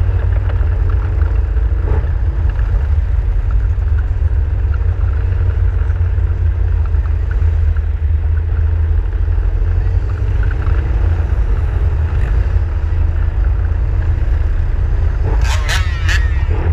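Off-road vehicle engine running at low cruising speed under a heavy, steady low rumble of wind and road on the microphone. A brief high-pitched call rises over it near the end.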